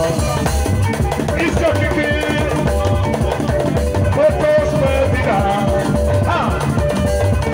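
Live band music with a steady drum-kit beat and a melody line carried over it.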